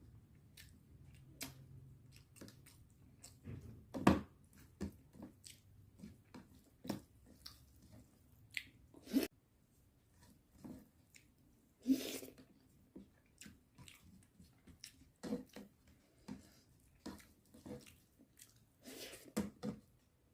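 Close-miked eating: a person chewing chicken curry and masala poori, with irregular wet mouth clicks and smacks. The loudest smacks come about four seconds in and again about twelve seconds in.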